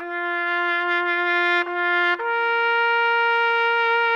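Trumpet-like brass sound effect, edited in: one held note, then a step up to a higher held note about two seconds in.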